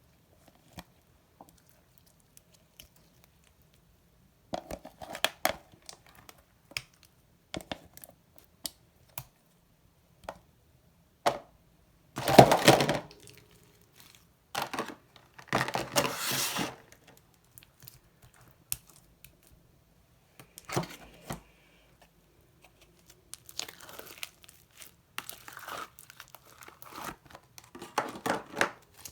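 Slime being squished, stretched and mixed by hand: scattered sticky clicks, crackles and pops in short bursts with quiet gaps between, the loudest bursts about twelve and sixteen seconds in.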